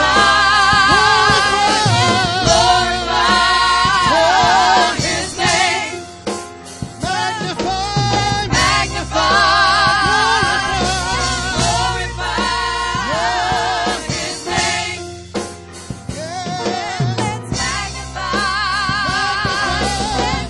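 Gospel music: several voices singing long held notes with heavy vibrato over a low bass.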